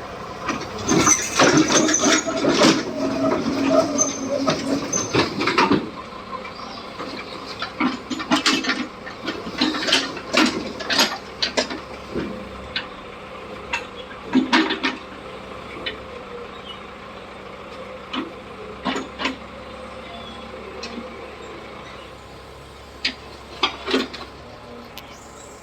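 A mini excavator's engine runs steadily while repeated sharp knocks and clanks ring out, busiest and loudest in the first six seconds, then scattered.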